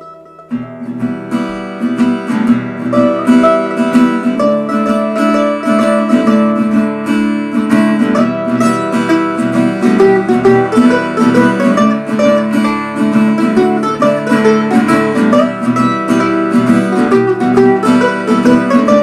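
Acoustic guitar and a second guitar playing an instrumental tune together. It starts about half a second in with quick, steady picking.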